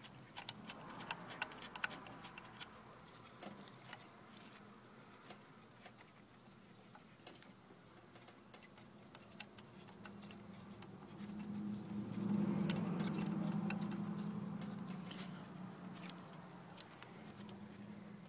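Scattered light metallic clicks and ticks as a cam gear holder tool is fitted and its knobs are run up by hand onto the diesel engine's cam gears. A low hum swells and then fades about halfway through.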